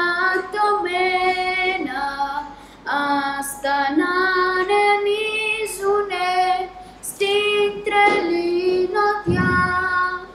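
A boy singing solo in a high child's voice, a melody in short held phrases with brief breaks between them. A low rumble comes under the voice near the end.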